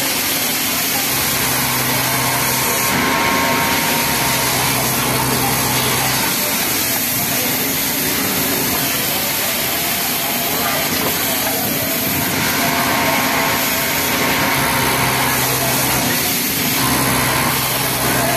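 Industrial Pegasus flatlock sewing machine stitching a t-shirt neckline, running in several stop-start runs of a second or two each, over a steady background din of other machines.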